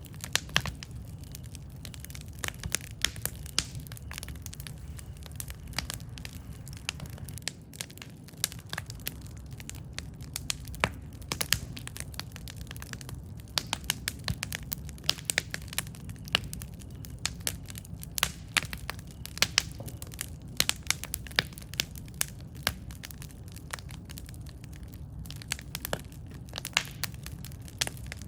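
Campfire burning with a steady low rumble and frequent irregular crackles and sharp pops of burning wood.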